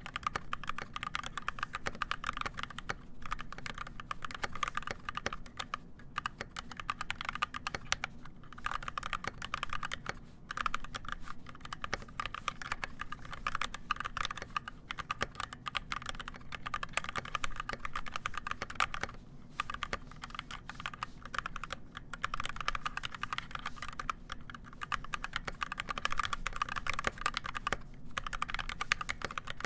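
Fast continuous typing on an NK65 Entry mechanical keyboard with EV-01 switches and PBT keycaps: a dense stream of key clicks, broken by a few brief pauses.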